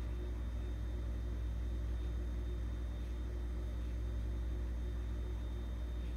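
Steady low hum with a faint hiss: room background noise, without distinct sounds on top.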